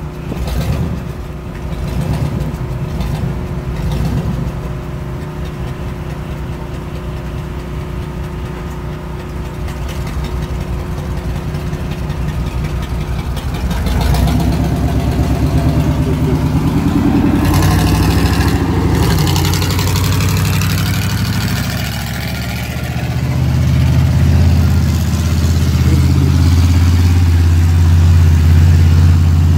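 Monster truck engine idling with a few short throttle blips, then revving up and getting louder about halfway through as the truck pulls away across the grass, and running loud and steady near the end.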